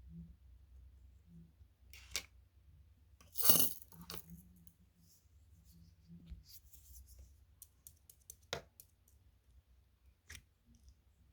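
Homemade slime being handled, with scattered sharp sticky clicks and pops and one louder noisy burst about three and a half seconds in.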